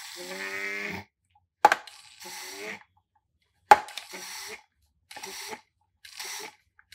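Hand-pumped vacuum oil extractor being worked: a series of plunger strokes about a second apart, each a short airy squeak, with two sharp clacks of the handle. The pumping builds vacuum in the canister to draw the outboard's engine oil up through the dipstick tube.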